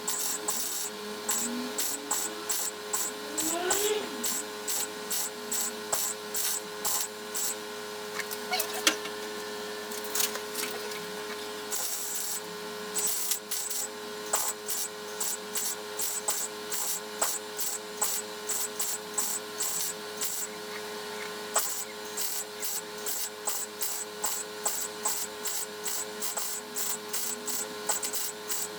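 Electric welder joining a steel repair panel to a car's floor, crackling in short runs of rapid pulses with brief pauses between, over a faint steady hum.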